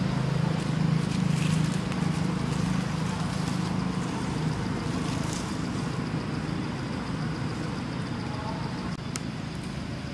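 A steady low motor hum, like a vehicle engine running nearby, that eases off over the last couple of seconds, with a faint thin high whine above it and a single sharp click near the end.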